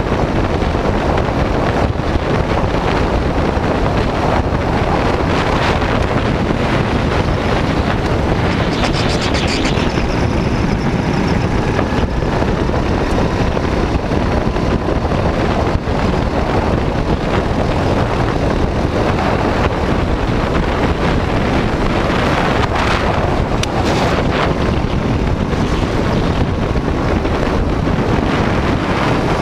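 Go-kart engine running at speed on track, mixed with heavy wind buffeting on the kart-mounted camera's microphone.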